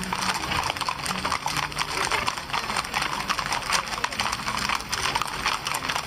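Many horses' hooves clip-clopping in a dense, irregular patter as mounted riders pass in a parade, with people's voices mixed in.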